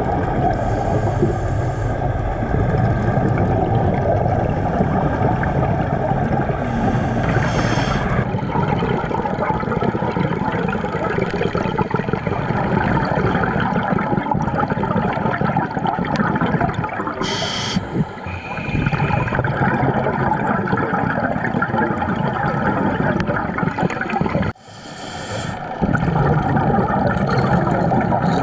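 Underwater gurgling and rumbling of a scuba diver's exhaled regulator bubbles, heard through the camera housing, with short bursts of hiss now and then. The sound dips briefly twice in the latter part.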